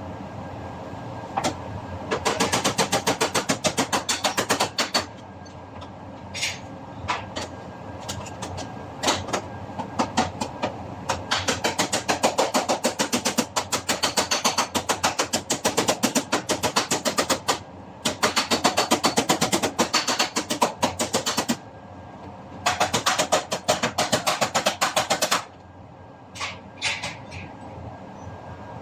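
Auto-body hammer tapping dented sheet metal against a dolly: quick runs of sharp metallic strikes, several a second, broken by short pauses and a few single taps.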